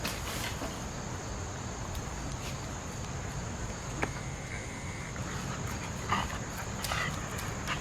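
A dog making two short sounds near the end, over a steady low rumble and hiss.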